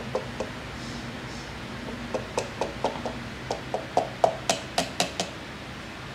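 A piston being tapped down into a cylinder bore of a Mercedes-AMG M133 four-cylinder block with the butt of a hand tool: a run of short, sharp taps, two at the start and then about a dozen more from about two seconds in, getting louder toward the end.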